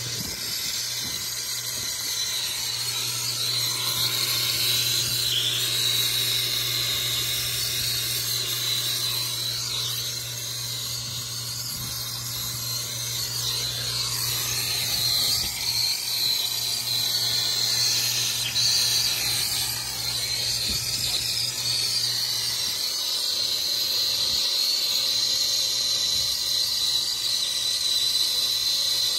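Soldering torch flame hissing steadily and high-pitched while it heats copper refrigerant line joints at a condenser's service valve. A low steady hum underneath stops about three-quarters of the way through.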